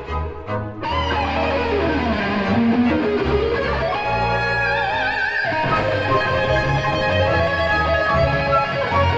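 Stratocaster electric guitar playing a lead melody over a symphony orchestra's sustained accompaniment. About a second in, the guitar line falls in a long run and then climbs back up. Around five seconds in it holds a high note with wide vibrato.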